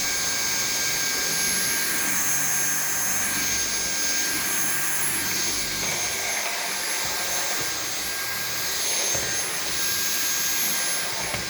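Dyson V7 Animal+ cordless stick vacuum running with a steady high-pitched motor whine over a rushing hiss as it is pushed over a rug, the sound swelling slightly with each stroke. It is described as exceptionally quiet.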